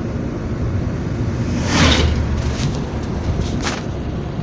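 Steady road and wind rumble from a moving vehicle, heard on a phone microphone. About two seconds in comes a loud rushing whoosh as an oncoming decorated truck passes close by.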